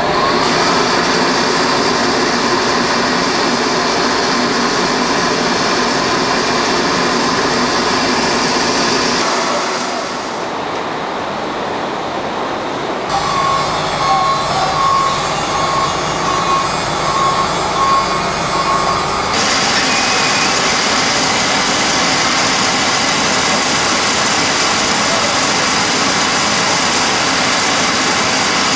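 Loud, steady machinery noise of a dry-bulk loading chute outloading dolomite into a truck, a continuous hum and hiss. Midway, for several seconds, a high beep repeats about once a second.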